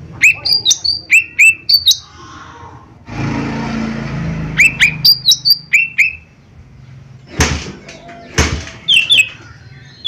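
Lesser green leafbird (cucak ijo mini) calling: loud, sharp, hooked chirps in quick groups of three to five, with a stretch of rustling noise after the first group and two short, sharp rushing noises later on.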